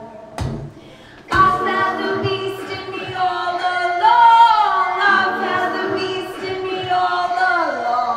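Live synthpop music: a sung vocal line with gliding pitch over keyboards and a beat. The music drops out near the start, with one hit in the gap, then comes back in full about a second in.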